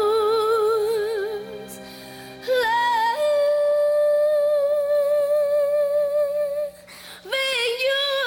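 A woman singing a slow song over soft accompaniment: a note with vibrato fades away, then after a short pause a long held higher note, and the singing picks up again near the end.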